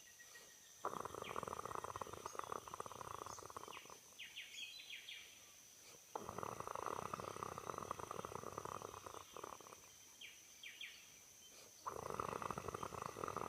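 A person snoring: three long, fluttery snores, each about three seconds, coming about every five and a half seconds, with faint high squeaks in the pauses between them.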